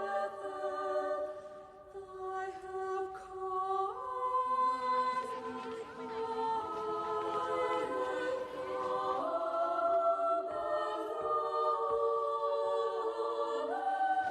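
A choir singing sustained chords in slow steps, without words being clear.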